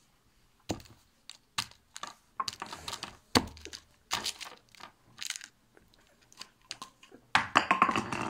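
Handling noise on a phone's microphone: a fabric sleeve rubbing across it and hands knocking it, heard as a string of irregular knocks and scrapes, with a denser, louder scraping stretch near the end.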